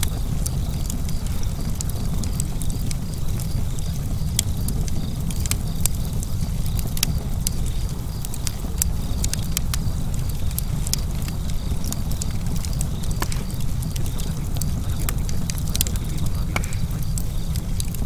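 Fire crackling: irregular sharp pops and snaps, many a second and unevenly spaced, over a steady low rumble of the burning.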